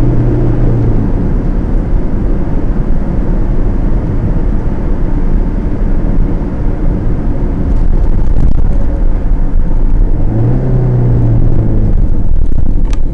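Car engine and tyre noise heard from inside the cabin while driving, steady and loud. A steady engine hum fades about a second in and returns near the end.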